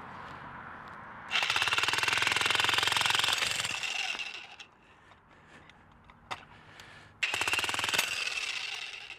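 VEVOR 2200 W electric demolition jackhammer driving a chisel bit into a block of 6-inch concrete. It hammers in two bursts of very rapid blows, one starting about a second in and running about two and a half seconds, the other near the end lasting about two seconds.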